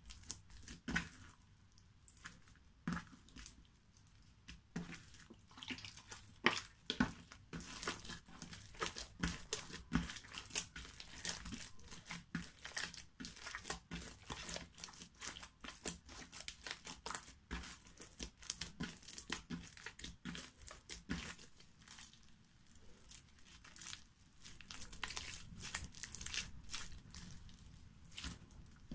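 Foam-bead slime with glitter being kneaded and stretched by hand, giving off a rapid run of small crackles and pops, densest through the middle and thinning out for a moment about two-thirds of the way through.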